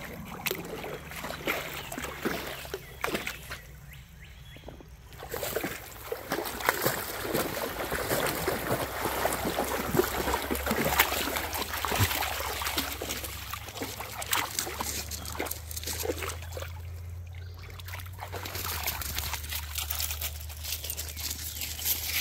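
Dogs wading through shallow creek water, with continual splashing and sloshing. It is busiest and loudest in the middle, as one dog wades up close, and falls quieter briefly near the start and again near the end.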